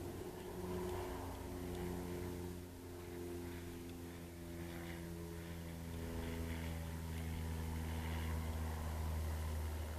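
Poulan 18-inch gas chainsaw engine running steadily, a low pitched hum that shifts slightly in pitch without revving hard.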